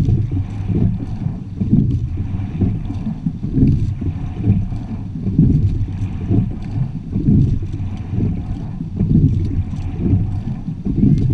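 Rowing quad scull moving through the water: water rushing along the hull with wind buffeting the boat-mounted microphone, surging in a steady rhythm about once every two seconds with the rowing strokes.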